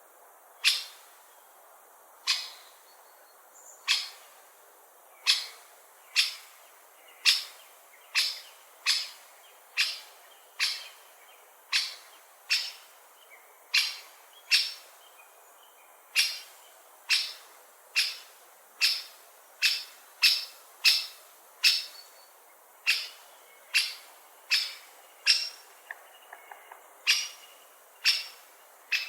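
Great spotted woodpecker calling: short, sharp, high single 'kik' notes repeated about once a second at uneven intervals.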